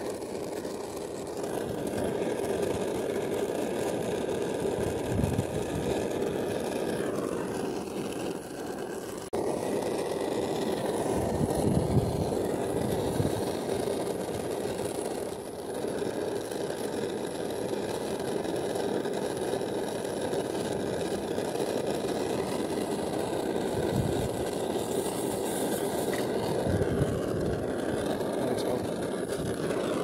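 A steady machine drone with several faint high whining tones, and a few low thuds here and there.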